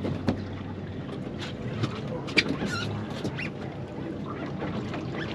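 Boat's engine idling steadily, with scattered short clicks and a few brief chirps over it.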